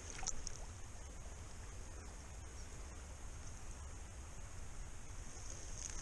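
Wind rumbling on the microphone over a steady high hiss, with a brief splash about a quarter second in as a hand dips into the shallow stream water.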